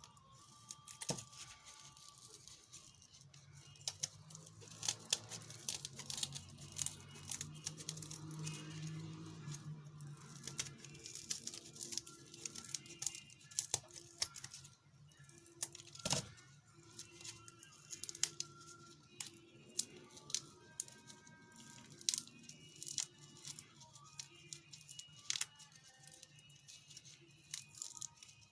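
Mantis shrimp shells being peeled and pulled apart by hand: many irregular small crackles, clicks and tearing sounds of the shell, over soft background music.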